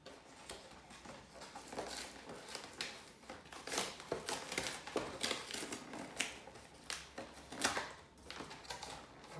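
A cardboard trading-card box being opened by hand: irregular crackling, rustling and scraping of cardboard and packaging, with sharp snaps throughout.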